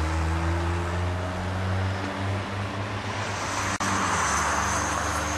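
A motor engine running steadily, a low hum over a hiss, with a faint high whine joining about three seconds in; the sound drops out for an instant a little before four seconds.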